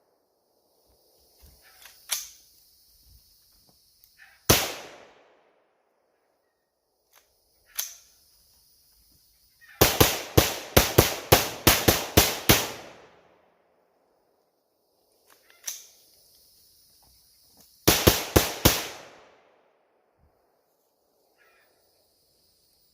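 5.56 rifle gunshots fired in a drill: single shots a few seconds apart, a fast string of about ten shots about ten seconds in, and a quicker group of about four near the end.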